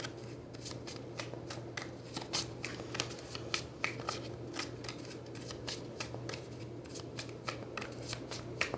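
Oversized tarot cards being shuffled by hand: a quick, irregular run of crisp card snaps and flicks, several a second. A steady low hum runs underneath.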